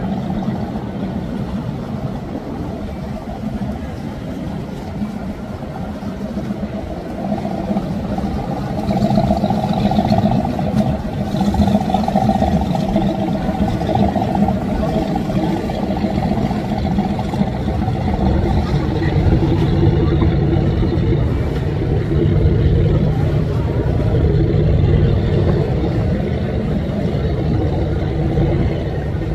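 Motor yacht's engines running at slow cruising speed, a steady low drone that grows louder in the second half as the boat passes close.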